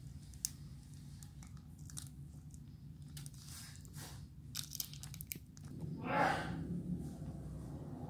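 Plastic wrapper of a round strawberry hard candy crinkling and crackling in the fingers as it is unwrapped, in scattered small crackles, with one louder rustle about six seconds in.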